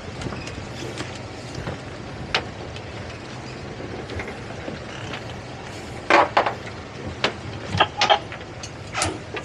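Boat outboard engines idling with a steady low hum, with several sharp knocks, one about two seconds in and a cluster about six to nine seconds in.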